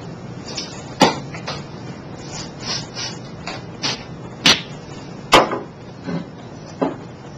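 Irregular sharp metal clicks and knocks from a thread tap and tap wrench being turned by hand to cut threads in a drilled hole, three much louder than the rest at about one, four and a half and five and a half seconds in.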